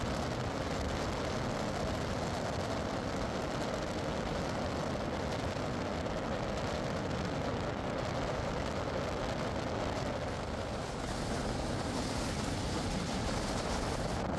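Vehicle driving, heard as a steady, even road-and-engine rumble with hiss and no distinct engine note.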